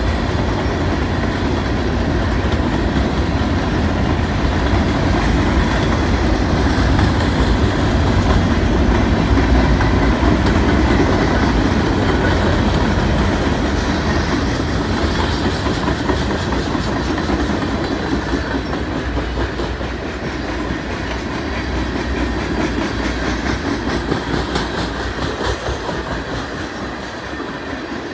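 CN freight train cars, covered hoppers and then tank cars, rolling past: a steady rumble of steel wheels on rail, with wheel clicks that are plainer near the end. The sound eases slightly in the second half.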